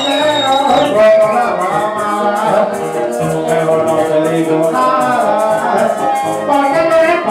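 Joropo music: maracas shaken in a quick, even rhythm over a pitched melody.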